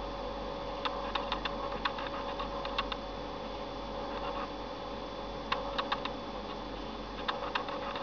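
Three short runs of small button clicks, a few quick presses each, as the media-centre menus are stepped through, over a steady electrical hum.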